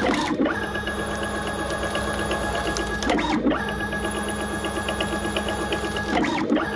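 Mini CNC lathe cutting a thread in aluminium, its 12 Nm hybrid servo spindle drive and axis motors giving a steady mechanical whine. The whine breaks off briefly three times, about three seconds apart.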